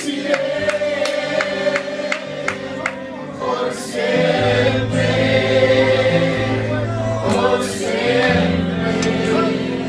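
Gospel worship music: a group of voices singing over instrumental accompaniment, with deep sustained bass notes coming in about four seconds in.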